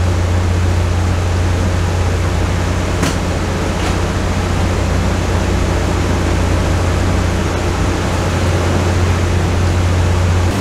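Steady low drone of a motor yacht's engines running at cruising speed, heard inside the enclosed helm, with an even rushing hiss over it.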